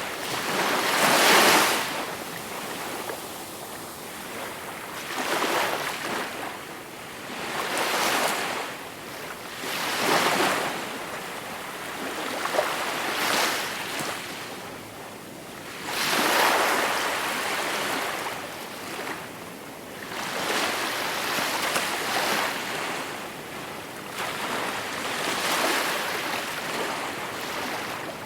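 Gentle sea waves breaking and washing in, one swell after another every few seconds, the biggest about a second in and another around the middle.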